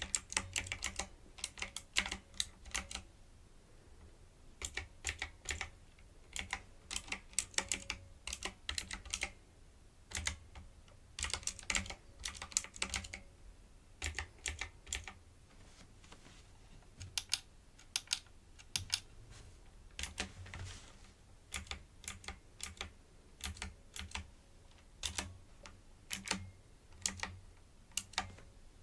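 Typing on a typewriter-style computer keyboard with round keycaps: quick clicky keystrokes in runs of a few seconds, broken by short pauses.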